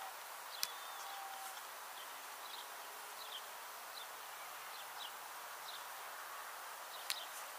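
Open-air field ambience: a steady hiss with faint, short bird chirps scattered throughout, a sharp click about half a second in and a couple more near the end.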